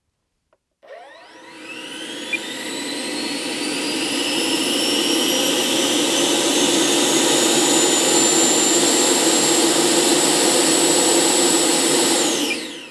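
The FMS Futura's 64 mm electric ducted fan spools up from about a second in, a rising whine that climbs for several seconds and then holds steady at high power. It is throttled back near the end, the whine falling away quickly.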